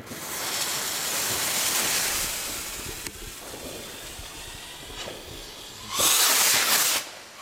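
Magnum Shellrockets' F2 ball-shell rocket motors hissing on lift-off: a long rushing hiss, loudest for the first three seconds and then fading, with another loud hiss about six seconds in and a third right at the end.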